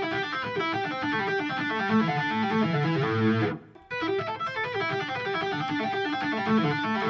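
Eight-string electric guitar playing a fast tapped run on the A minor pentatonic scale around the 12th fret. The run breaks off briefly about halfway through, then starts again.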